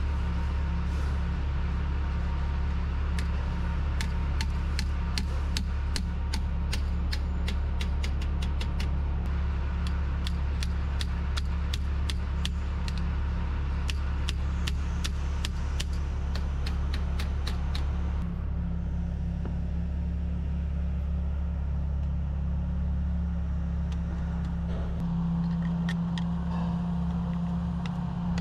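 Hand ratchet clicking in quick runs as the turbo oil supply line fittings are tightened; the clicking stops about two-thirds of the way in. Under it, a steady low hum.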